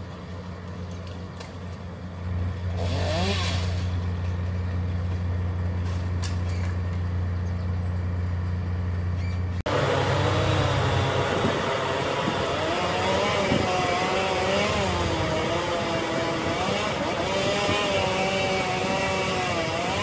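Tree-service machinery running. A steady low engine drone comes first; after a sudden break about ten seconds in, a louder motor takes over, its pitch wavering up and down.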